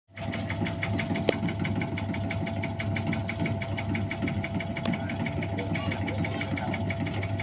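Tobacco-cutting machine running, driven by a small water-pump engine: a steady engine hum with an even rhythmic beat of about six a second. A single sharp click a little over a second in.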